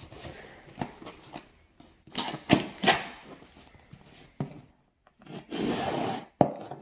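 Kitchen knife blade slitting packing tape on a cardboard box: irregular scraping and slicing strokes, the loudest a few sharp ones about two to three seconds in, with a single knock near the end.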